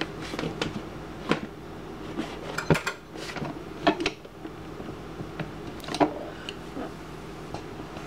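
Scattered sharp clicks and light knocks as the DeLonghi EC5 espresso machine is handled, loudest just under three seconds in, around four seconds and about six seconds in, over a low steady hum.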